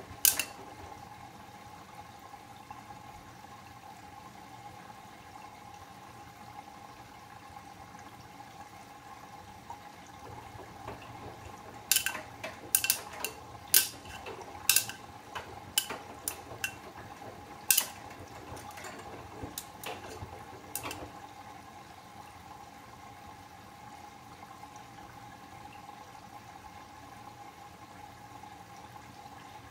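Bosch Serie 8 front-loading washing machine mid-wash: water sloshing in the turning drum over a steady whine from the machine. About twelve seconds in, a run of sharp clanks comes for about nine seconds.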